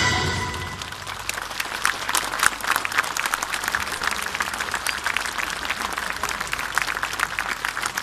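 Crowd of spectators applauding, many hands clapping steadily, as music fades out in the first second.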